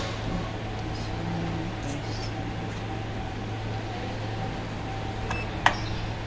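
Steady low hum inside a moving Otis Gen2 Lumina gearless, belt-driven traction elevator car during its ride, with one sharp click near the end.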